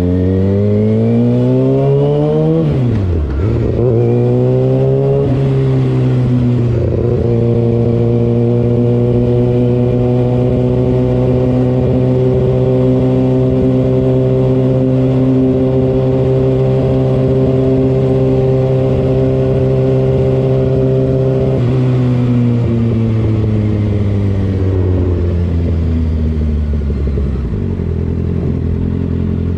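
Kawasaki ZX-6R 636 inline-four engine accelerating hard: the revs climb and drop sharply with upshifts about three and five seconds in, then hold steady at cruising speed. About 22 seconds in the revs fall away as the bike slows, settling at a lower steady pitch near the end.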